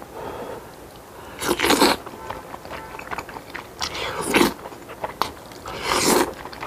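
Wide saucy noodles slurped up with chopsticks: three loud slurps, about two seconds apart, with chewing between them.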